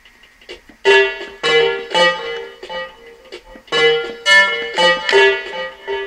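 Music notes played from a Max/MSP patch under joystick control: pitched notes that each start sharply and fade, in two runs of about four notes, the first beginning just under a second in and the second a little under four seconds in.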